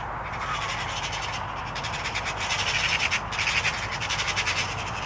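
Eurasian magpie chattering: a rapid, harsh rattle of calls that grows louder after the first second or two.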